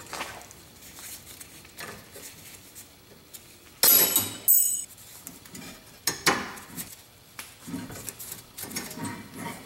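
Metal clinks and scrapes of pliers working a metal retaining clip off a brake hose bracket. About four seconds in come two sharp ringing clinks close together, followed by lighter clicks and scrapes.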